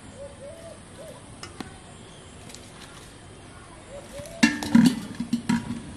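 Clattering of a metal lid against an aluminium cooking pot: a quick run of sharp clanks with a ringing tone, starting about four and a half seconds in.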